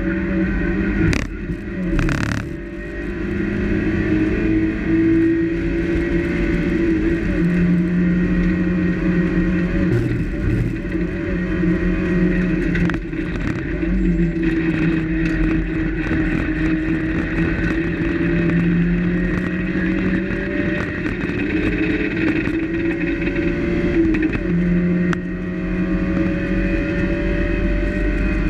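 Mazda MX-5 race car's four-cylinder engine at racing speed, heard from inside the cockpit. The engine note climbs steadily and drops back at each gear change, several times over. A couple of sharp knocks come about one and two seconds in.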